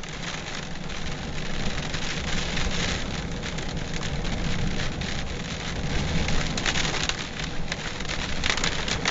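Rain falling steadily during a thunderstorm, with a steady low rumble underneath and a few sharper drop hits in the last few seconds.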